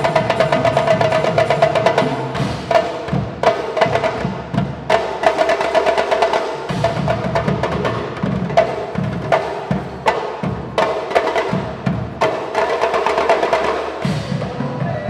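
Percussion ensemble playing drums in a fast, dense rhythm over a held pitched note that drops out briefly a few times.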